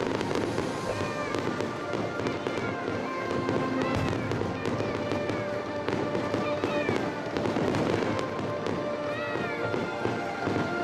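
Aerial fireworks crackling and popping in a dense, continuous stream of sharp reports, with music playing over them.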